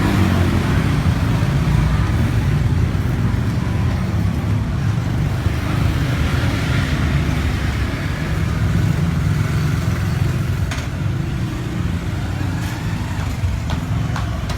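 A motor vehicle running: a steady low rumble, with a few faint clicks near the end.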